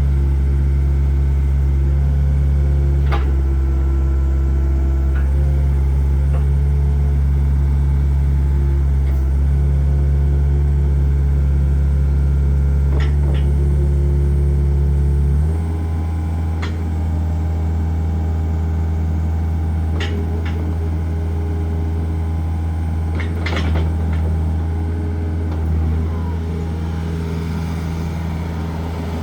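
Kobelco SK50SR-5 mini excavator's diesel engine running steadily, changing note and getting slightly quieter about halfway through, with a few short sharp knocks.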